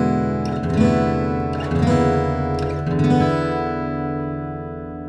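Acoustic guitar music: a few strummed chords, the last one, about three seconds in, left ringing and slowly fading away.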